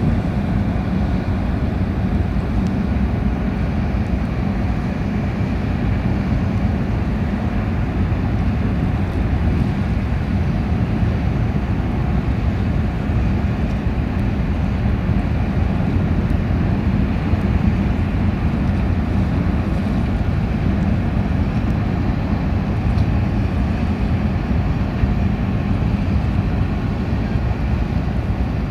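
Car ferry Akebono-Maru's engines running with a steady low rumble and hum while the ship manoeuvres into port.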